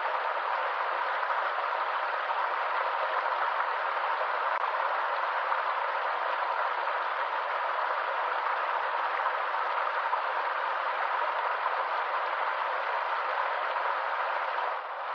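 A stream's water running steadily, an even rushing hiss that dips briefly near the end.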